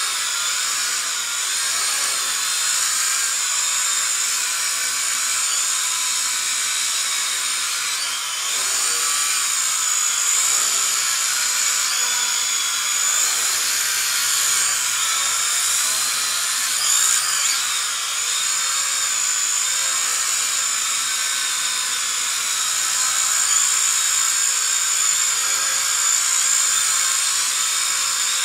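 Small motors and propellers of a micro quadcopter whining, a high-pitched buzz whose pitch wavers up and down as the throttle changes.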